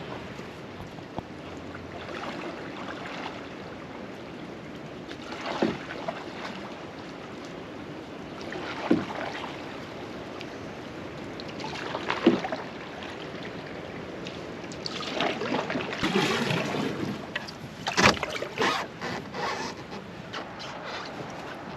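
Canoe paddle strokes in the water, one about every three seconds, each a short swish. Near the end comes a busier, louder stretch of splashing noise with one sharp knock.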